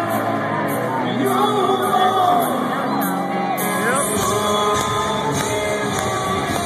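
Metalcore band playing live: distorted electric guitars, drums with crashing cymbals and a singer's vocals. Deep bass comes in about four seconds in.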